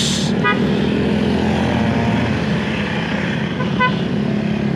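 A group of motorcycles and scooters riding past with their engines running, and two short horn beeps, one about half a second in and one near the end.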